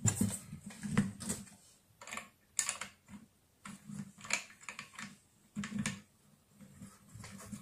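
Irregular light clicks and taps of small metal parts against a metal bracket and plywood plate, as a screw is turned in by hand while fitting an angle grinder mount.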